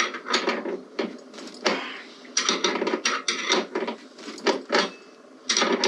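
Run of sharp clicks, knocks and small clatters from hardware being handled while a motorcycle saddlebag and its mount are fitted, busiest in the middle and again near the end.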